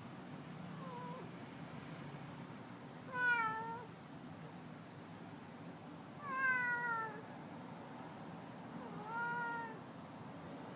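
Domestic cat meowing over and over: a faint short meow about a second in, then three loud drawn-out meows about three seconds apart.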